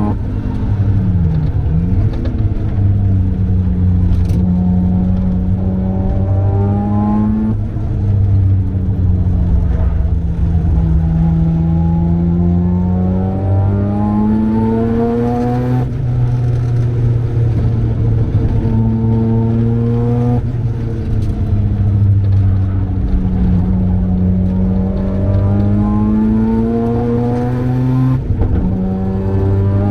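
Mazda RX-7's turbocharged 13B rotary engine pulling hard on track, its pitch climbing steadily for several seconds and then dropping sharply, about four times, as it shifts or lifts.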